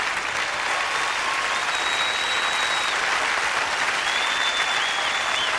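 Large audience applauding steadily after a live song, with a few long, high whistles over the clapping.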